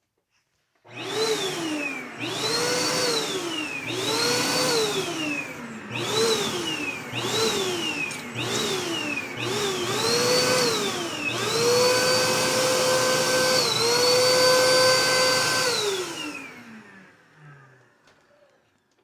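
Vacuum cleaner motor switched on and off again and again: it spins up with a rising whine and winds down each time, about eight times in quick succession. It is then held on steadily for a few seconds before spinning down near the end.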